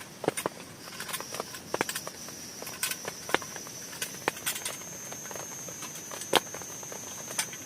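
Scattered raindrops tapping irregularly on a plastic tarp, with a steady high-pitched tone running underneath.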